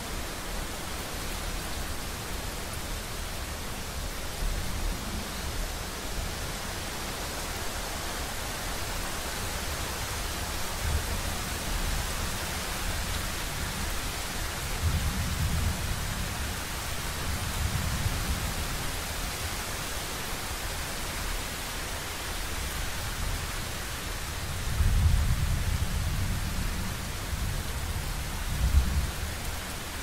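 Thunderstorm: steady heavy rain hissing, with low rolling thunder rumbles swelling about halfway through and again near the end, where one rumble peaks sharply.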